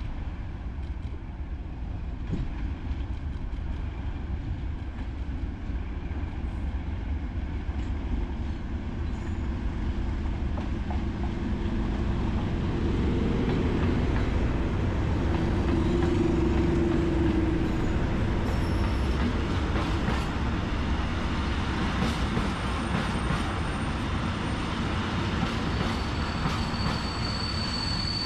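Two Class 37 diesel locomotives, each with an English Electric V12 engine, approaching and passing close by, getting louder to a peak around the middle. They are followed by empty bogie log wagons rolling past with wheels clattering over the rail joints, and a high steady wheel squeal starts near the end.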